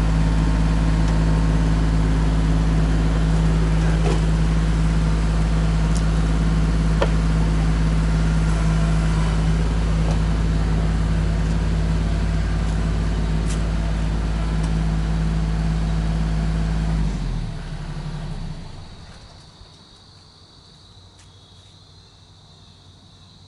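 Kubota compact tractor's diesel engine running steadily, with a few faint knocks, then falling away sharply about 17 seconds in and fading out by about 19 seconds. After that only a faint, steady high insect drone is left.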